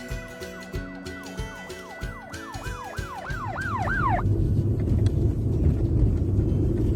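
Background music with a beat and a repeating swooping, siren-like glide that comes quicker and quicker, cutting off about four seconds in. It gives way to the steady low road and engine rumble of a car driving, heard from inside the cabin.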